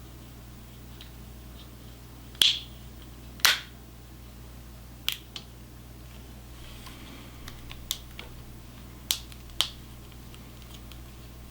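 A series of about seven sharp, irregularly spaced clicks, the two loudest about two and a half and three and a half seconds in, over a faint steady low hum.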